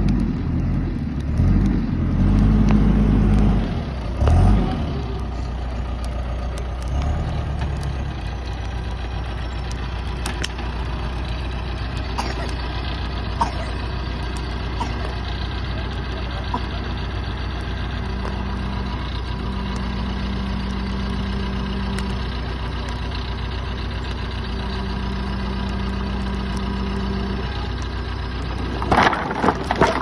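John Deere 310SJ backhoe loader's diesel engine running, louder and shifting in pitch during the first few seconds, then steady. About a second before the end comes a loud clatter as wood and scrap are dumped from the front bucket onto a pile.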